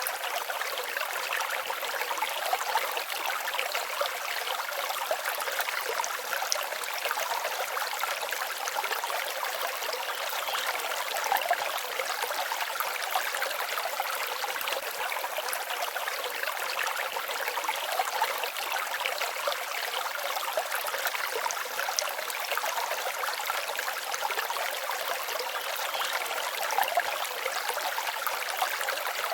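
Forest stream babbling steadily: a continuous, light rush of water with little low rumble.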